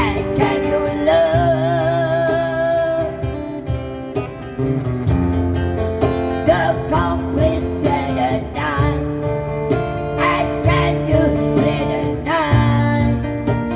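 Acoustic guitar strumming chords under a singing voice that holds a long wavering note about a second in, then slides through short bending phrases.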